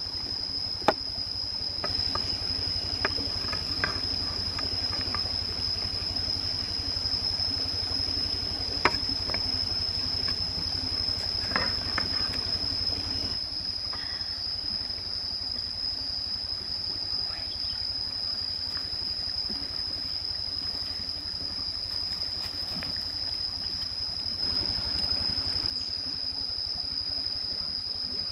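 Steady, high-pitched drone of forest insects, with a few sharp clinks and knocks in the first half as a wooden spatula serves food from a metal pan into a clay bowl.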